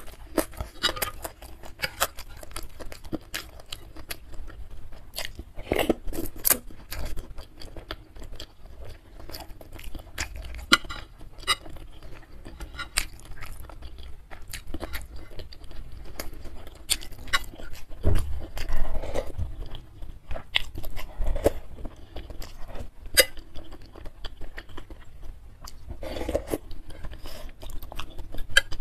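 Close-miked chewing of beef tendon meatballs (bakso urat) and noodles in soup, with wet mouth clicks and smacks all through, and a few louder, fuller mouthfuls.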